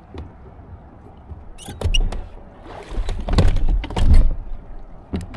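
Dull thumps and knocks on the boat's front deck, about four of them with the loudest around four seconds in, as the foot pedal of a Minn Kota Ultrex trolling motor is pushed while the motor is seized and will not turn.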